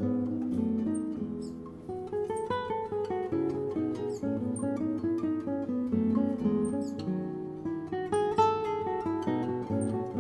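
Acoustic guitar music, plucked and strummed, with short high chirps sounding every second or two above it.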